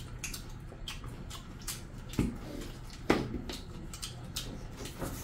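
Close-miked eating by hand: wet chewing and mouth clicks, and fingers squelching through curry-soaked rice and chicken, with two louder smacks about two and three seconds in.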